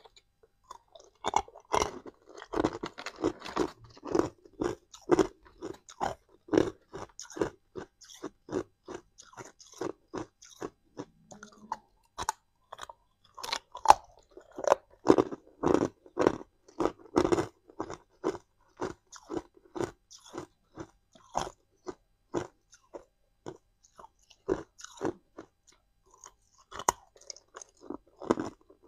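Hard clear ice chunks being bitten and chewed close to the microphone: a long run of sharp crunches, about two a second, with brief lulls between mouthfuls.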